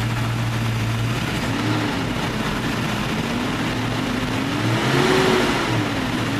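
The 5.0-litre pushrod V8 of a 1992 Ford Mustang running cold, just after its distributor pickup was shimmed, with piston knock. It is revved gently twice: a short blip about a second and a half in, then a slower, larger rise that peaks near five seconds and settles back.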